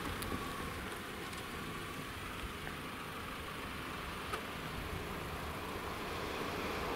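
Steady low vehicle rumble with a noisy hiss, starting to grow louder near the end.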